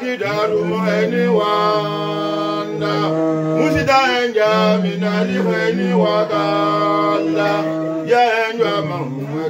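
Men chanting an Islamic devotional chant through microphones, holding long sustained notes with no instruments.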